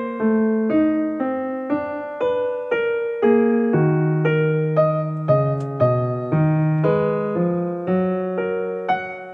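Background piano music: a slow, even run of notes and chords, struck about twice a second, each one fading before the next.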